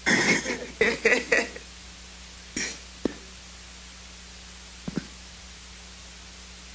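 A second or so of faint, indistinct speech, then a pause of quiet room tone with a steady low electrical hum and a few soft clicks.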